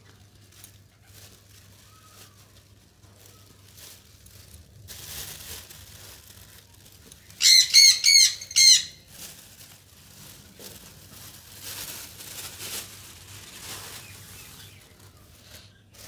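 A conure gives a quick run of about five harsh squawks about halfway through, over soft rustling and scraping of handling in the bird box.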